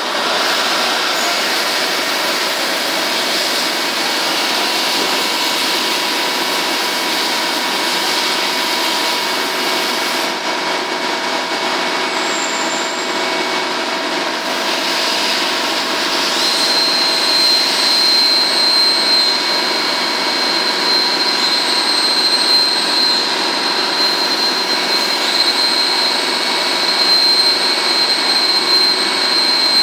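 Biglia B470 YMS Quattro CNC turn-mill lathe running a machining cycle: a steady mechanical noise with several steady tones, joined about halfway through by a high whine that holds.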